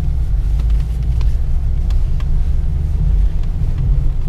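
Steady low rumble inside the cab of a 1988 Toyota 4Runner driving slowly through snow: its 3VZ-E V6 engine and drivetrain running, with tyre noise, and a few faint light clicks over it.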